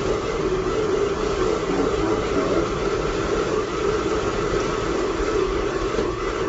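A gummy bear burning violently in molten potassium chlorate in a clamped test tube, flame and smoke jetting from the tube's mouth with a steady, unbroken rushing hiss.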